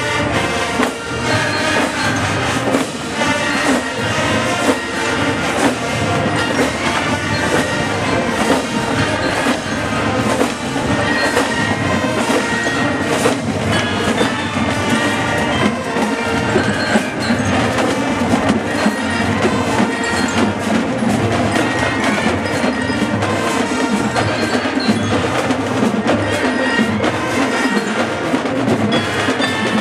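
Massed marching band of several hundred players performing a piece together: brass, saxophones and a steady drum beat, with a bright ringing mallet-percussion line over the top.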